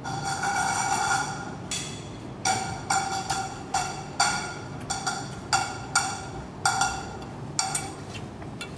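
A single-pitched electronic tone, held for nearly two seconds, then repeated as short, evenly spaced notes about twice a second.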